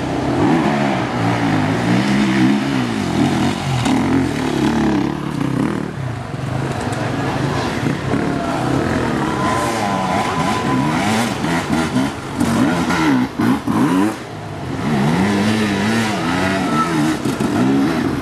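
Enduro dirt-bike engines revving up and easing off again and again as the throttle is worked in short bursts, with more than one bike heard at once. The sound dips briefly a little past the middle.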